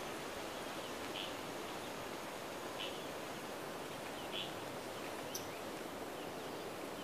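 Rainforest ambience: a faint steady hiss of the forest with a short high chirp from an animal repeating about every one and a half seconds.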